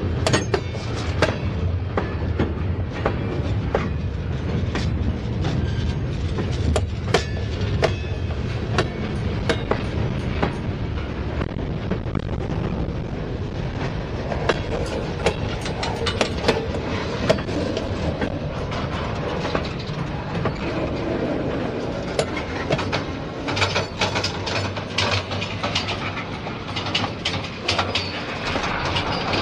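Freight cars rolling past at close range: a steady rumble of steel wheels on rail, broken by frequent sharp clicks and clanks as the wheels cross rail joints.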